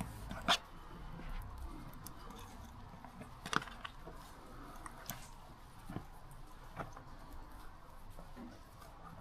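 A few sharp clicks and light taps of small parts being handled, the loudest about half a second in and another a little after three and a half seconds, as brake line fittings and washers are worked on by hand.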